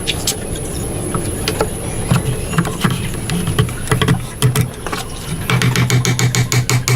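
Hand tool work on wood: scattered taps and knocks, then from about five and a half seconds in a fast, even run of strokes, about five a second.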